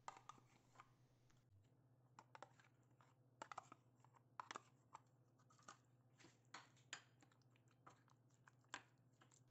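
Faint, irregular clicks and taps of a metal spoon scraping yogurt out of a plastic cup and knocking against a glass bowl, over a low steady hum.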